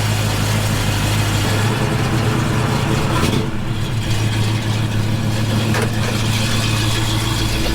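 1965 Ford Mustang's engine running at low speed, a steady low hum, with a brief change in its sound about three and a half seconds in.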